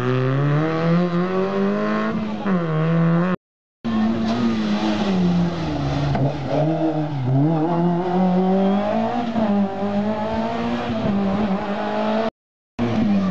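Small rally cars' engines at full throttle. The first accelerates away with steadily rising revs until an abrupt cut about three seconds in. A second engine then revs up and down through a hairpin and accelerates away, its pitch climbing and dropping with the gear changes, before another brief silent cut near the end.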